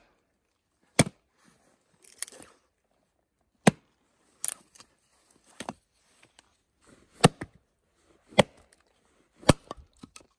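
Small axe chopping and splitting dry spruce rounds: a series of about seven sharp, separate strikes, roughly a second apart.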